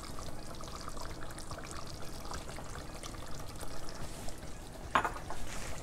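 Cream sauce simmering in a pot, a steady soft bubbling.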